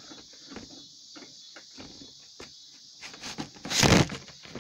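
Steady high chirring of insects, crickets by the sound of it, with scattered small clicks and rattles of handling. About four seconds in comes one loud bump.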